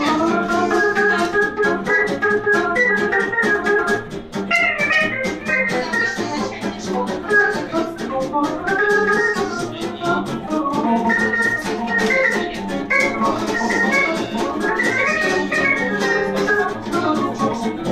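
Live acoustic band: an accordion carries a sustained melody over archtop guitar and double bass accompaniment.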